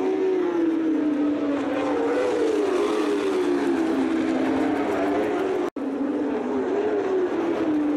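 Moto2 racing motorcycles' 600 cc Honda inline-four engines running at high revs, several at once, their pitches overlapping and rising and falling as the riders work the throttle and change gear. The sound cuts out for an instant about six seconds in.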